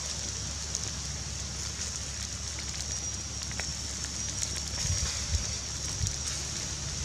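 Small charcoal-and-wood cooking fire crackling softly under fish grilling on a stick rack, with scattered faint clicks and a steady high whine behind it. A few low knocks come in the second half.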